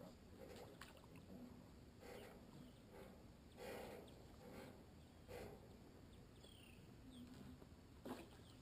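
Near silence: faint outdoor background with a low rumble, several soft knocks (the sharpest one just after eight seconds in) and a few faint, short high chirps.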